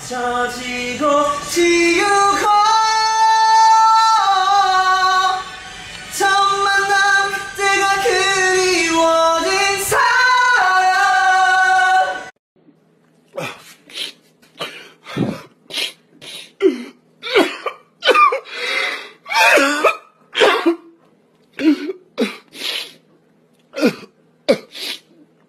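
Male voices singing long held notes that step up and down, stopping abruptly about halfway through. After that, a man crying in short, broken sobbing bursts with pauses between them.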